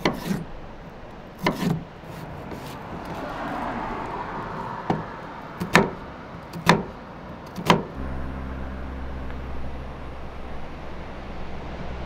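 A chef's knife chopping vegetables on a wooden cutting board: about ten sharp, irregular chops over the first eight seconds. Then the chopping stops and a steady low hum takes over.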